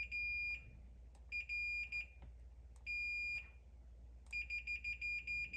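Multimeter continuity beeper sounding as the probes are put across fuses. There are three steady high beeps of about half a second each, then a quick stuttering run of short beeps near the end. Each beep shows continuity, a sign that the fuse is intact.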